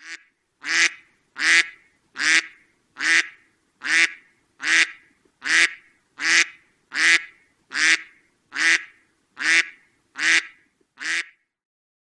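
Duck quacking in a steady, even series of single loud quacks, about five every four seconds, stopping near the end.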